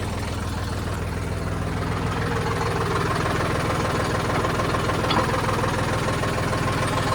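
An engine idling steadily, an even low running sound that holds without change, with a faint click about five seconds in.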